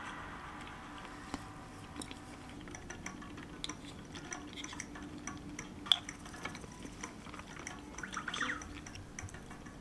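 Faint eating sounds: wooden chopsticks and a wooden spoon clicking lightly against a wooden bento box, and soft chewing. One sharper click about six seconds in is the loudest sound.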